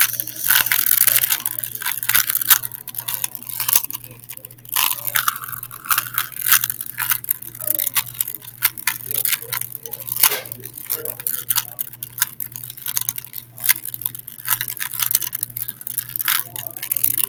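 Rubik's cubes being scrambled by hand: rapid, irregular plastic clicking and clacking as the layers are twisted, over a steady low hum.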